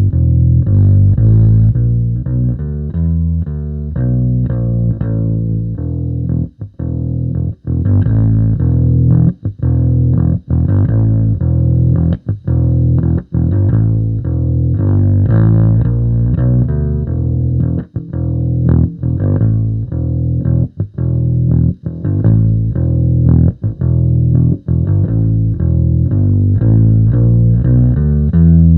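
Electric bass played with a pick through a Sonicake B Factory bass preamp: a driving riff of low notes, broken by several short stops between phrases.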